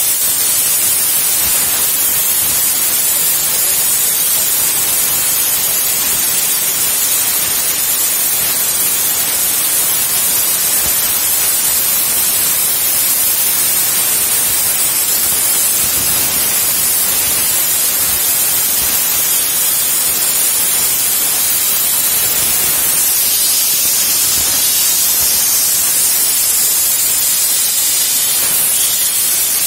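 CNC plasma cutter's torch cutting steel plate: a steady, high-pitched hiss of the plasma arc and its air jet, with no change in level.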